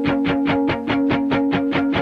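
Background music: electric-guitar-led instrumental with notes picked in a fast, even pulse of about eight a second.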